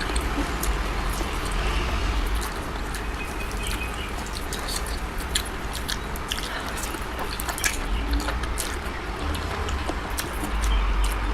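A person eating close to the microphone: chewing and smacking food, with many short sharp clicks over a steady low hum.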